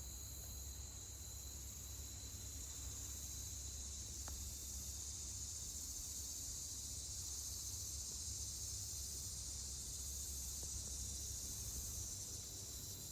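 A steady, high-pitched chorus of insects trilling without a break, with a low rumble underneath.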